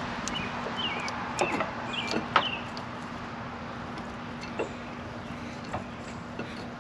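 Birds chirping now and then over a steady low hum, with a few light clicks of metal being handled.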